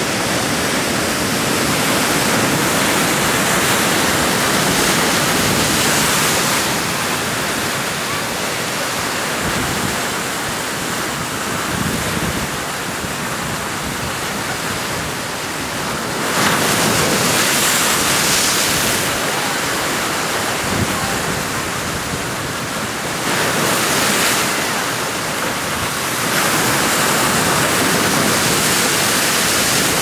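Ocean surf breaking and churning against shoreline rocks: a steady rush of foaming water that swells louder as waves come in, most clearly a little past the middle and again near the end.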